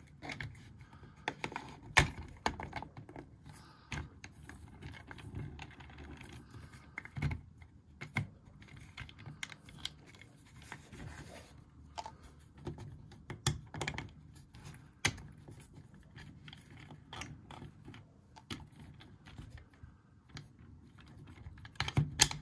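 Light, irregular clicks and scrapes of plastic parts being handled as a yellow TT gear motor is worked into its plastic bracket and its shaft lined up, with a few sharper clicks and a small cluster of them near the end.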